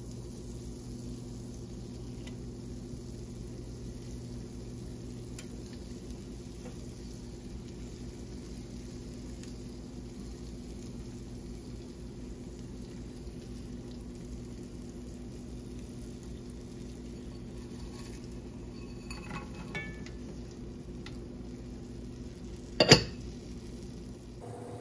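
Butter and oil sizzling steadily in a cast-iron skillet as panfish fillets are laid in to fry, over a steady low hum. A few light clicks come late on, then one sharp, loud clank of dishes near the end.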